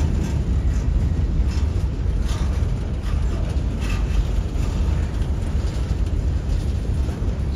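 Freight train boxcars rolling past: a steady low rumble of steel wheels on rail, with a few faint clicks.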